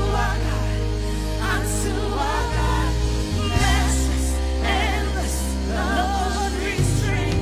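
Gospel worship music: singing voices with wavering melodic runs over long held bass notes that change every couple of seconds.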